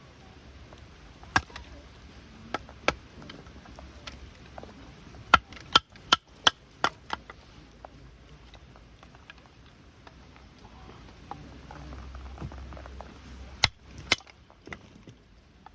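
A dozen or so sharp, irregular knocks, bunched in the first half and again near the end.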